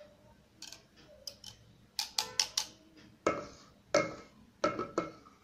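Metal hand-mixer beaters being taken off and knocked against the rim of a stainless steel bowl of batter: sharp metallic taps with a brief ring, coming in small clusters from about two seconds in.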